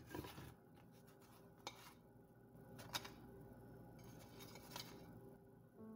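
A few faint taps and scrapes of a spatula against a non-stick frying pan as a cooked pita bread is slid out and lifted away.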